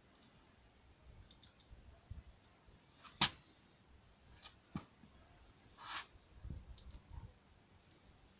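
A few scattered sharp clicks and taps over a faint background, the loudest a little over three seconds in, with a longer scrape-like click about six seconds in.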